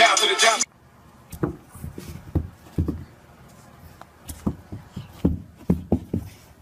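Hip hop music that cuts off under a second in, then about a dozen irregular dull thumps and knocks spread over several seconds, with quiet between them.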